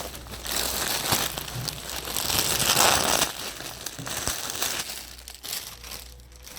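Clear plastic packaging bag crinkling and rustling as it is handled, loudest about two to three seconds in.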